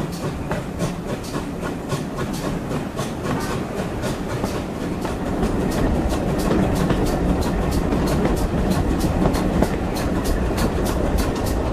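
Train running along the track with a quick, even beat of about five strokes a second, the rumble growing louder and deeper about halfway through.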